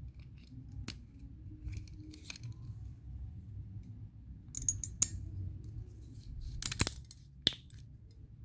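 Crimping tool being squeezed to crimp an RJ45 plug onto a LAN cable, giving a series of sharp clicks spread over several seconds, the loudest near the end.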